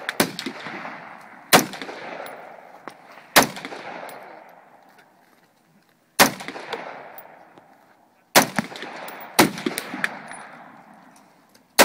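AR-15 rifle fired in slow single semi-automatic shots, about six sharp cracks one to three seconds apart, the last at the very end. Each shot trails off in a long rolling echo.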